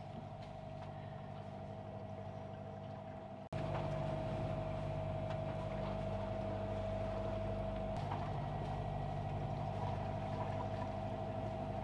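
Sailboat's inboard diesel engine running steadily under way, a low hum with a steady whine above it. It becomes suddenly louder about three and a half seconds in.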